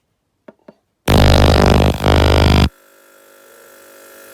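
Two quick button clicks, then an ultrasonic cleaner starts its degas cycle with a loud, steady electric buzz for about a second and a half, briefly dipping midway. It then cuts off abruptly, leaving a much quieter steady hum.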